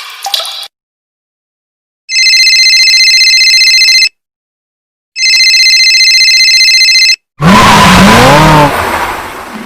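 A telephone ringing twice, each ring a steady bright trill about two seconds long with a second's pause between. About seven seconds in, a loud rushing noise with a wavering, rising-and-falling pitch cuts in.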